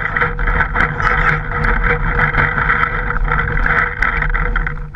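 Handling and movement noise from a camera mounted on a paintball marker as the player moves: a steady muffled rush with scattered short knocks.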